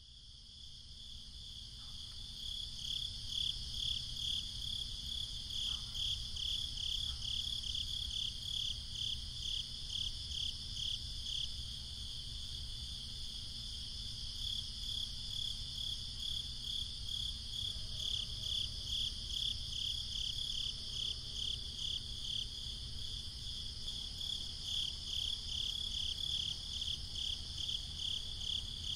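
Crickets chirping in a steady pulsing chorus, fading in over the first few seconds.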